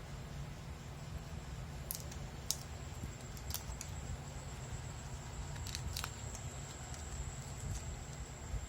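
Scattered light clicks of a plastic external hard-drive casing being handled, about six of them in the middle of the stretch, over a steady low hum and a faint steady high whine.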